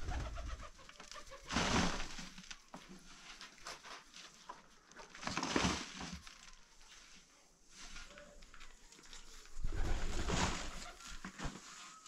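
A dove cooing in the background, broken by three bursts of rushing noise about a second long, the loudest sounds, a second and a half, five and a half and ten seconds in.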